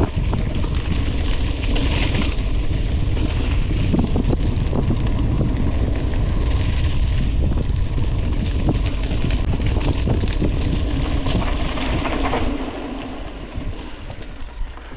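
Wind buffeting the microphone while riding a mountain bike, with the tyres rolling over the trail and the bike's frame and chain rattling; the level eases off about 12.5 s in as the bike slows.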